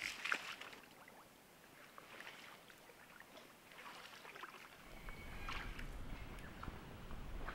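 A person wading through shallow swamp water: footsteps splashing and sloshing a few times, the loudest right at the start.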